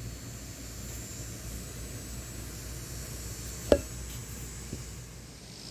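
Steady low background rumble with one sharp click a little past halfway, and a fainter tick about a second later.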